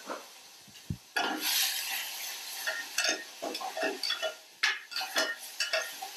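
Sliced mushrooms sautéing in hot olive oil in a pan on the stove. A burst of sizzling starts about a second in, followed by repeated clinks and scrapes of a utensil stirring them in the pan.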